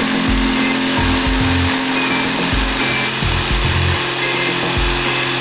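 Electric jigsaw cutting a curve through an MDF board, a steady buzzing saw, with background music with a regular bass beat.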